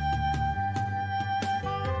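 Background music: a long held melody note over a low, steady bass line.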